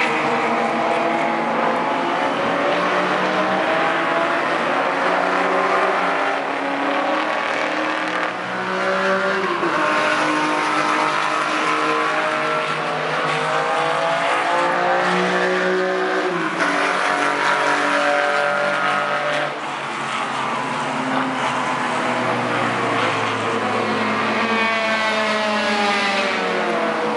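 Classic racing cars' engines running hard on a circuit, several at once, each climbing in pitch as it revs and dropping sharply at each gear change as the cars sweep past one after another.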